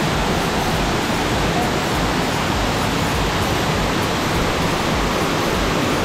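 Tukad Cepung waterfall pouring into its pool: a steady, even rushing of falling water.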